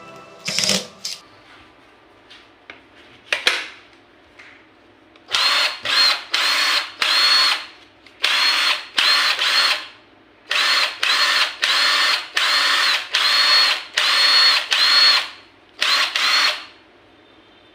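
Makita DTW190 18 V cordless impact wrench run with short trigger pulls: about sixteen brief bursts in quick groups, each with the motor whining up to speed, starting about five seconds in. A few light clicks come before the bursts.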